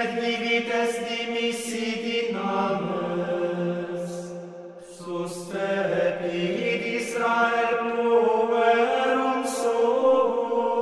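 Background music of chant sung by voices: slow, long-held notes that step from pitch to pitch, with sung consonants and a brief pause for breath about five seconds in.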